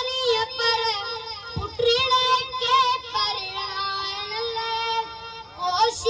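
A boy singing a manqabat, a devotional praise song, solo into a microphone. His high voice is amplified and carries wavering, ornamented held notes, with one long held note in the middle.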